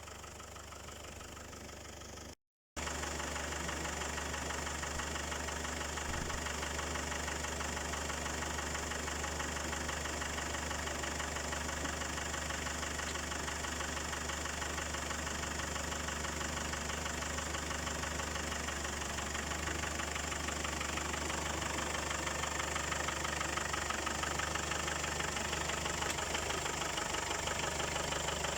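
Range Rover Classic engine idling steadily, with a brief total dropout about two and a half seconds in, after which it is louder.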